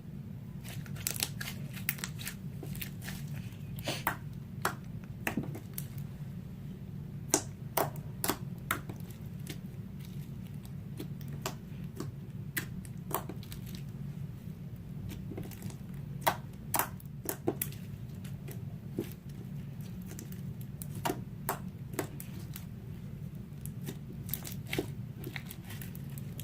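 Clear borax slime being worked by hand, giving off irregular sharp clicks and pops, over a steady low hum.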